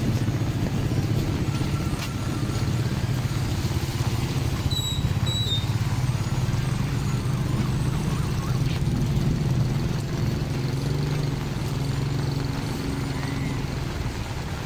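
A vehicle engine runs steadily with a low hum. Two short high beeps sound about five seconds in.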